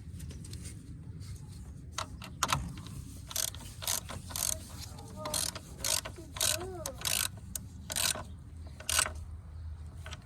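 Socket ratchet clicking in a dozen or so short, uneven strokes, tightening the battery cable clamp nut on a car battery terminal.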